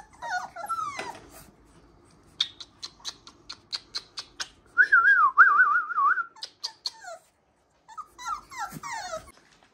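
Puppies whining and whimpering in high, falling whines, with one long wavering whine about five seconds in. A quick run of sharp clicks sounds in between.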